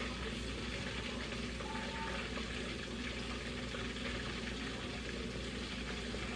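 Cornmeal-battered flounder deep-frying in a pot of hot oil: a steady sizzle.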